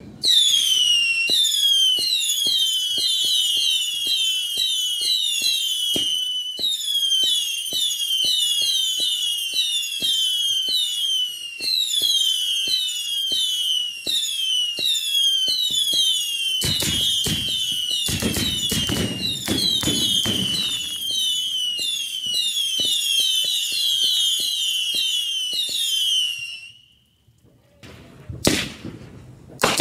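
Screamin Demon whistling firework firing a rapid stream of overlapping screaming whistles, each falling in pitch, with steady popping. Heavier bangs and crackle come in about two-thirds of the way through. The whistles stop suddenly a few seconds before the end, followed by two sharp firework bangs.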